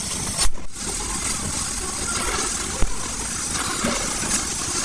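Steady mechanical running noise, engine-like, with a brief drop-out about half a second in and a short knock near three seconds.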